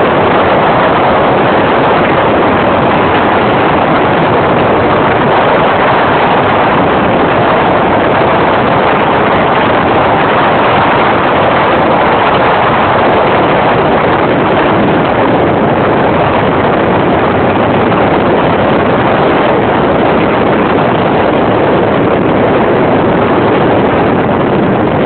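Sea-Doo Speedster jet boat running steadily at speed, its engine noise mixed with water rushing past the hull.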